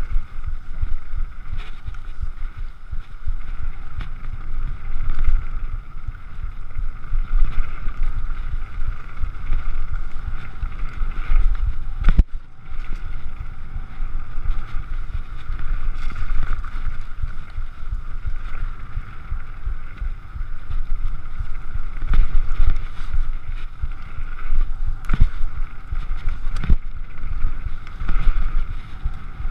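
Downhill mountain bike running fast over a rough gravel and dirt trail: a continuous rumble of tyres and wind buffeting the microphone, broken by a few sharp knocks as the bike hits bumps.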